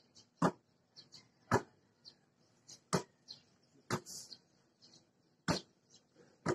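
Basketball smacking into two players' hands as it is caught on each chest pass: about six sharp slaps, roughly one every second or so, with faint high chirps in between.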